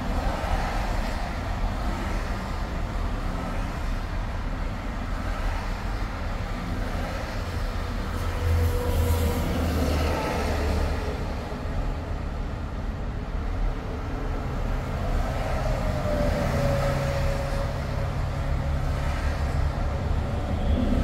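Steady rumble of a vehicle driving on a highway: continuous road and tyre noise with a low drone, and faint tones that slide slightly in pitch partway through.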